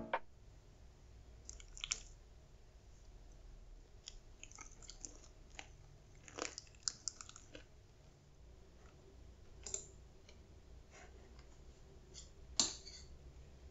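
Quiet eating sounds: chewing and scattered light clicks of a fork and a spoon against a bowl, the sharpest click near the end.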